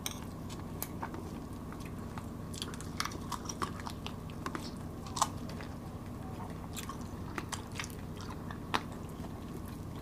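Two people chewing and biting into roast chicken and sticky rice, with scattered short clicks, the loudest about five seconds in and again near nine seconds, over a low steady hum.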